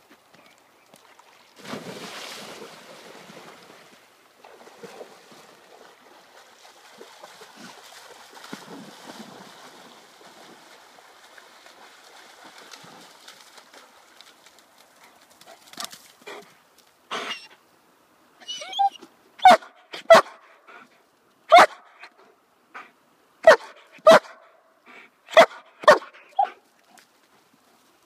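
Running river water at first, then a white Swiss shepherd dog barking in the second half: a run of about a dozen short, sharp barks at an uneven pace.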